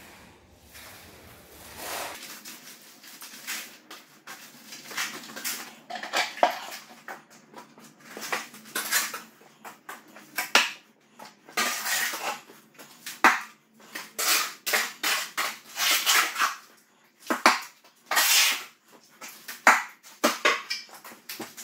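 A steel shovel scraping and scooping cement mix out of a metal wheelbarrow, with the loads dropped onto a concrete floor, over and over. The scrapes come in quick strokes and grow more frequent after the first few seconds. This is a garage slab being filled in section by section between screed strips to level it.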